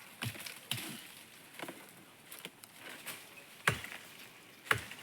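A series of sharp chopping or knocking strikes, about six of them at an uneven pace of roughly one a second; the two loudest come late.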